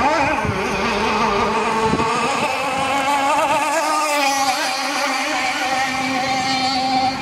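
Radio-controlled speedboat's two-stroke engine, fitted with a home-made tuned resonance pipe, running at high revs as the boat speeds across the water. Its pitch wavers up and down throughout.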